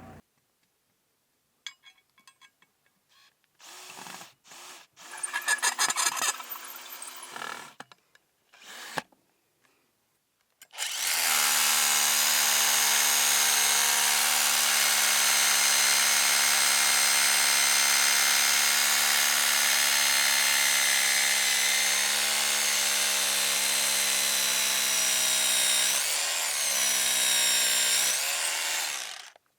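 Power tool motor whining steadily for about eighteen seconds, after a few short starts and clicks. Near the end its pitch dips and recovers twice, as if it is briefly loaded.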